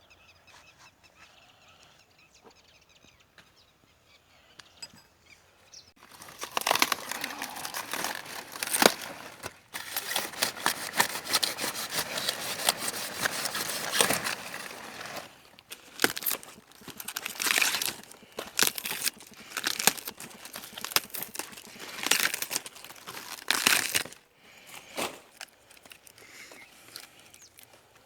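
Faint bird calls, then loud crackling and rustling in bursts of one to three seconds, each with many sharp clicks, dying away near the end.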